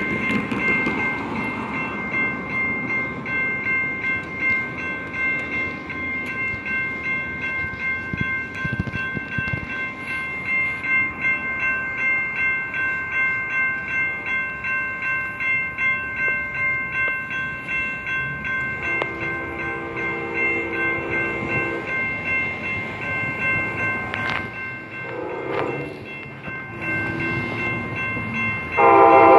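Railroad crossing bell ringing with rapid, regular strikes while an approaching Amtrak train led by a Siemens SC-44 Charger locomotive sounds its horn for the crossing. A long blast comes about two-thirds of the way in and more blasts follow a few seconds later. A much louder blast starts near the end as the train nears.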